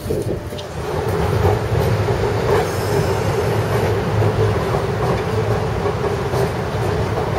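Vintage electric streetcar moving along the rails, growing louder about a second in, then a steady low rumble with a steady whine over it.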